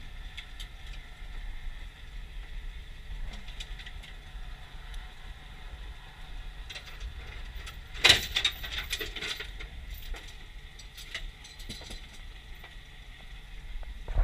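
A boat's outboard motor idling steadily, with a short burst of clattering and clicking about eight seconds in.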